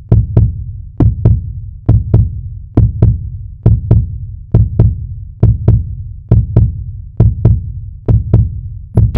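A deep heartbeat-style double thump in an intro soundtrack, the pairs repeating at an even pace a little faster than once a second.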